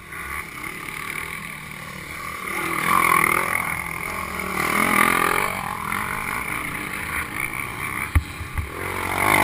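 Dirt bike engines running and revving up and down, with a single sharp knock about eight seconds in.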